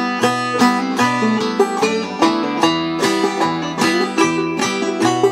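Mid-1970s Vega-Martin VIP five-string banjo played clawhammer style: a steady run of bright plucked notes with a regular, accented downstroke rhythm. The tune is an old-time fiddle tune in E minor, played in standard G tuning.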